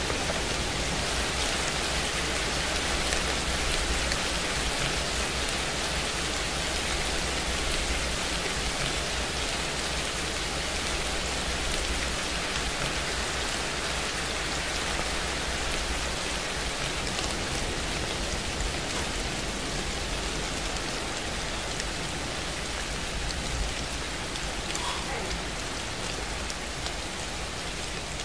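Steady rain falling on a surface: an even hiss with a fine patter of drops, easing slightly in level toward the end.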